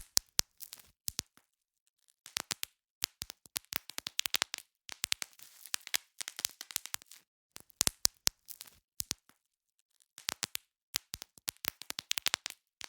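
Bubble wrap being popped: rapid runs of sharp pops in clusters, with crinkling of the plastic between, broken by two short pauses.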